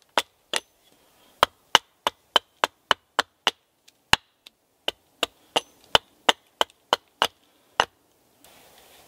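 Axe chopping into a split section of birch log on a chopping block, trimming out its centre. Quick, light strikes about three a second, with a short break about a second in and the last strike near the end, followed by a faint rustle.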